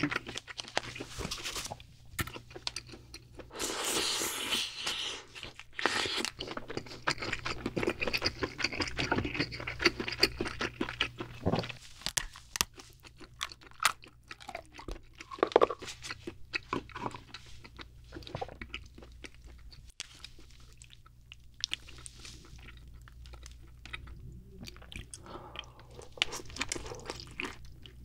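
Close-miked cracking and crunching of boiled king crab shell as the legs are snapped apart by gloved hands, mixed with wet chewing of the crab meat. It is a dense run of sharp cracks and clicks, with a quieter stretch about two-thirds of the way through.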